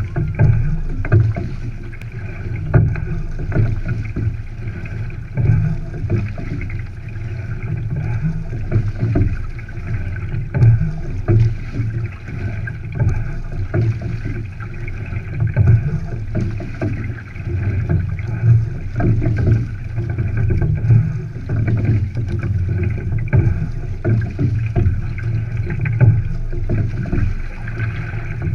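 Single scull being rowed: the oars knock in their gates and water rushes along the hull with each stroke, swelling about once every two and a half seconds.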